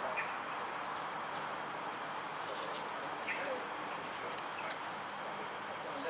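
Steady chorus of insects, with continuous high-pitched whining over an even background hiss, and a few faint short chirps.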